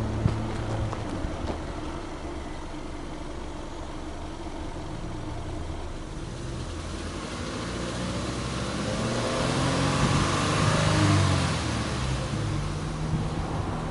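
Subaru Forester 2.0X's flat-four boxer engine running at the twin exhaust tips, with a steady low note. From about halfway in the sound slowly swells, peaks near the end and falls back.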